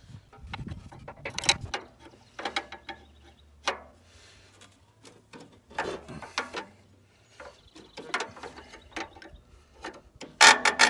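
Hand ratchet wrench clicking in short, irregular bursts as metal fittings on the tractor's hydraulic valve are turned, with a louder clatter of metal near the end.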